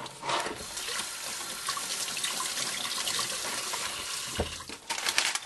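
Water running steadily from a kitchen tap for about four and a half seconds, then turned off, followed by a few light clicks.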